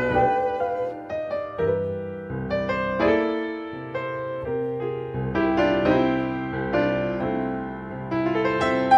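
Background piano music, a slow line of struck notes that each fade away.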